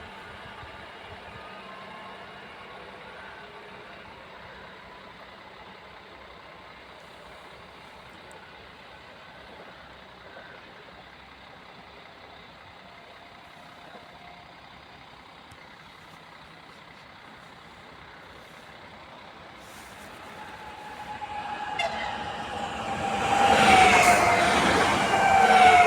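Quiet trackside background for about twenty seconds, then a train approaches and passes close, growing loud over the last five seconds with a pitched tone that drops in pitch as it goes by.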